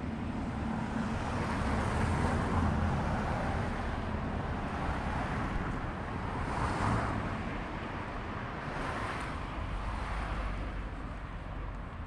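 Car traffic on the street: passing cars' tyre and engine noise swelling and fading several times over a steady low rumble.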